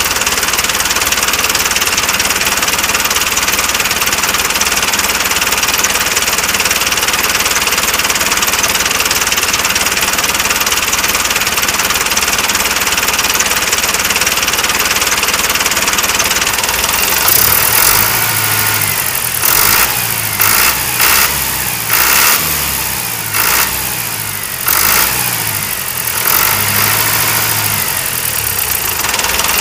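Engine-like running noise, steady through the first half. A little past halfway a choppy low throbbing joins in, changing pitch in steps, with short knocks among it.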